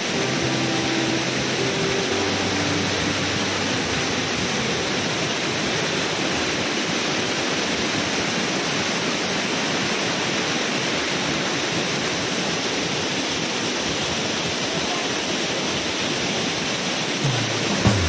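Waterfall pouring over rock ledges: a steady rush of falling water. A few faint music notes sound in the first few seconds, and music comes in near the end.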